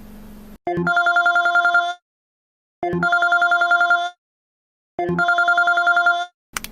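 Telephone ringing: three trilling rings, each about a second and a half long with a short pause between them. A brief click comes near the end.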